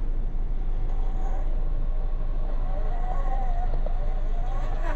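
Furitek Fury Wagon 1/18 scale brushless RC rock crawler driving, its motor whining and wavering in pitch with the throttle, loudest in the second half, over a steady low rumble. A short sharp knock comes near the end.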